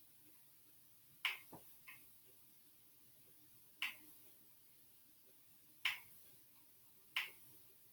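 Sharp single clicks of buttons being pressed, four loud ones spaced irregularly about two seconds apart, with two fainter clicks just after the first.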